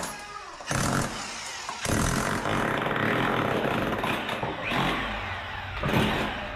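Electric chipping gun (demolition hammer) running against a wall. It starts about a second in, stops briefly, then runs steadily until near the end.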